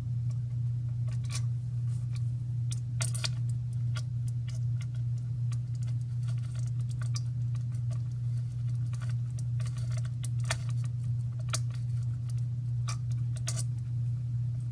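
Small irregular clicks and taps of a tool and metal nut being worked onto a toggle switch's threaded bushing in a radio transmitter's case, as the nut is tightened. A steady low hum runs underneath.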